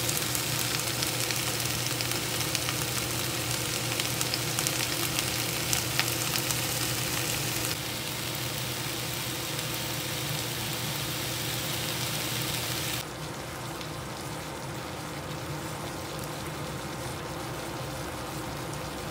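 Vegetables and noodles sizzling as they stir-fry in a frying pan, stirred with a spatula, over a steady low hum. The sizzle drops a step in level about 8 seconds in and again about 13 seconds in.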